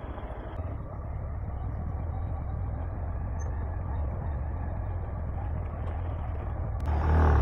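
Motorcycle engine running with a steady low rumble. Music comes in near the end.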